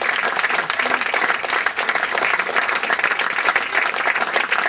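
Audience of about 200 people applauding, many hands clapping at an even level.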